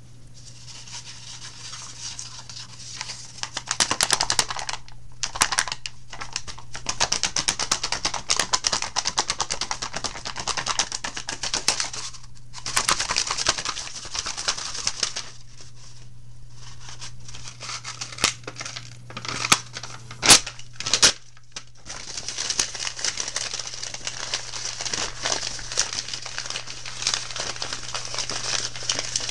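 Dense, rapid crackling and rustling close to the microphone, broken by a few short pauses, over a steady low hum.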